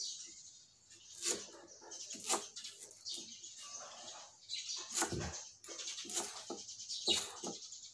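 Cleaver chopping lemongrass on a thick wooden chopping block: about six sharp knocks at uneven gaps of roughly a second.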